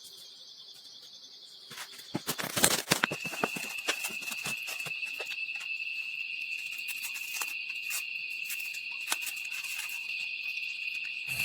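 Insects making a steady high-pitched buzz. About three seconds in it changes to a single, slightly lower steady tone. Irregular sharp clicks and snaps sound over it, loudest and thickest about two to three seconds in.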